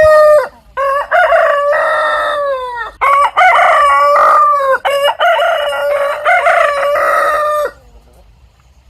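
Roosters crowing: several long crows in quick succession, one after another, which stop about eight seconds in.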